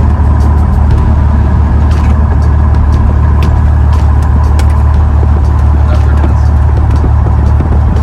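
Cessna 172's piston engine and propeller running with a steady, loud drone, with a few faint clicks over it.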